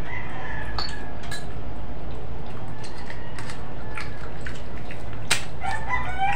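Cooked crab being broken apart by hand: a few sharp cracks and snaps of shell, the loudest about five seconds in. A chicken clucks in the background near the end.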